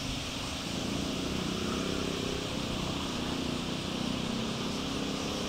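A low, steady engine drone that comes in about a second in, over an even outdoor hiss.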